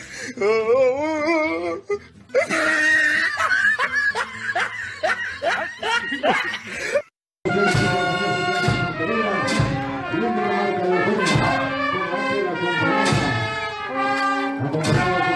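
A brass band plays a march with regular drum beats, starting about halfway in after a short break. Before that, a man's wavering, sing-song voice and then a noisy stretch of voices.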